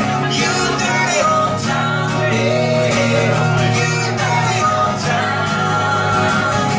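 Live song by a guitar duo: two guitars strummed while the men sing, the vocals rising and falling over a steady strummed accompaniment.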